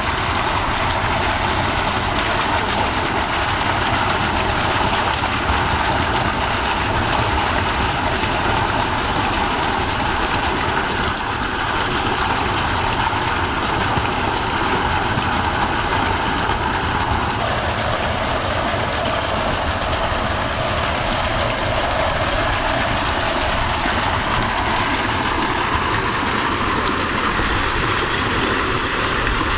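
Water from a fountain splashing steadily into its basin.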